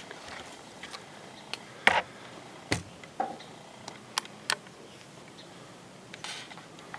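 Handling noise from a handheld camera: a handful of sharp clicks and knocks, the loudest a thump about two seconds in, then a short rustle near the end.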